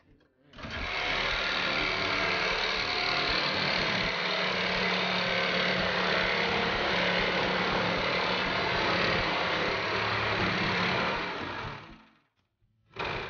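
Corded handheld power tool cutting through a car's sheet-metal roof, running steadily for about eleven seconds and then stopping. A short burst of the tool follows near the end.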